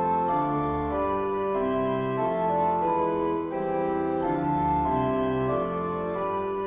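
Organ playing slow, sustained chords, the harmony changing about once a second.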